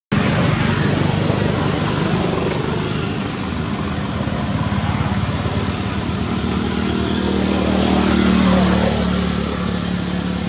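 Motor vehicle engine running nearby with a steady low hum, growing louder about eight seconds in as it passes.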